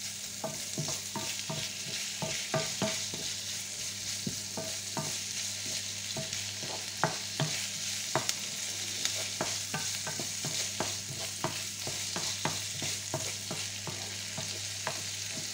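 Diced lardons and onions sizzling in a frying pan while a wooden spatula stirs them, scraping and knocking on the pan in quick, irregular clicks over a steady hiss.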